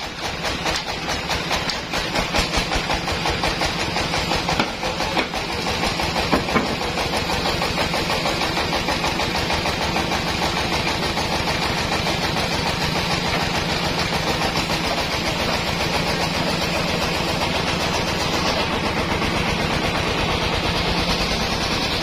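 Band sawmill running, its drive engine beating fast and evenly. The sound is uneven and surging for the first several seconds, then settles steady.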